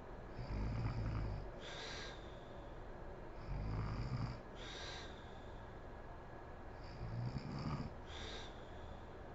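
A woman snoring in her sleep: three low snores about three and a half seconds apart, each followed by a brief hiss of breath.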